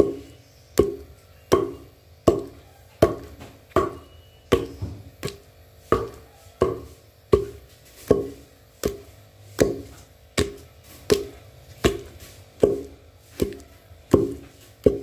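Wooden pestle pounding in a mortar: a steady run of dull strikes, about four every three seconds, each with a short ring.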